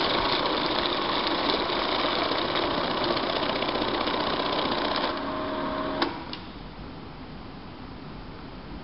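Kudoztech N-8 banknote counter feeding a stack of notes through its rollers, a fast, dense whirring flutter for about five seconds. It then hums steadily for a moment and stops with a click about six seconds in.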